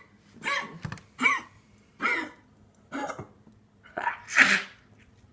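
An animal wheezing: a run of short, harsh breaths roughly a second apart, the last one near the end the longest and loudest.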